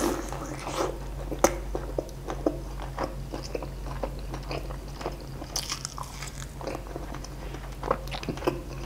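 A crunchy bite into a crispy, deep-fried chicken piece, then close-miked chewing with many irregular crisp crackles and mouth clicks, over a low steady hum.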